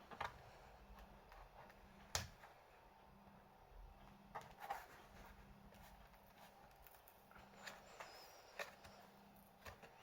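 Near silence broken by about eight faint, short clicks and taps at irregular intervals, the sharpest about two seconds in.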